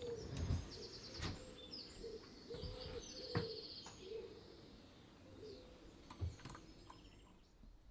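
Low cooing of a pigeon and chirps and trills of small birds outside, mixed with sharp clicks and knocks from the latch of a homemade powder-coating oven being opened and freshly coated metal parts being handled. The birds fade after about five seconds.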